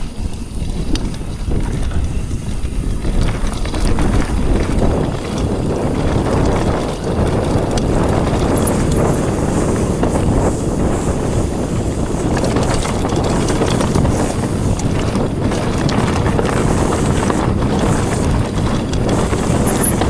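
Mountain bike riding down a rough trail: a steady rumble and rattle of tyres over rocks and roots, with wind buffeting the microphone.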